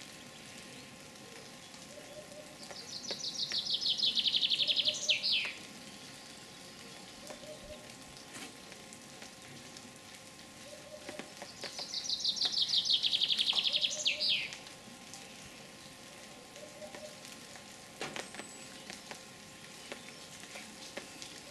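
A songbird sings twice, about nine seconds apart. Each song is a fast trill of notes that grows louder and falls slightly in pitch over about two and a half seconds, then ends in a quick downward flourish.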